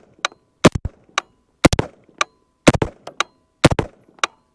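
Sterling Arms R18 .223 semi-automatic rifle firing a steady string of four shots about a second apart, each followed about half a second later by a fainter crack. It is shooting from a Harrow magazine, which feeds it reliably.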